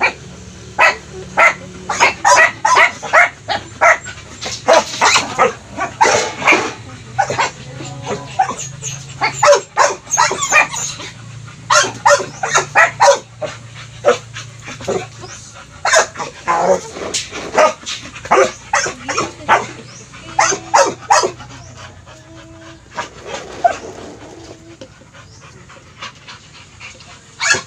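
Dogs barking in runs of short, sharp barks, several a second at times, thinning out after about twenty seconds.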